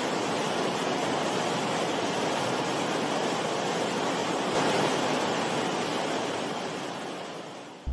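Steady rush of flowing water, like a river or creek, fading out near the end.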